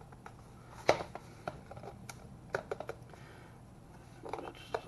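Plastic clicks and taps from handling a trigger-style RC car transmitter while its stiff battery cover is pried at without coming open: one sharp click about a second in, then scattered lighter clicks.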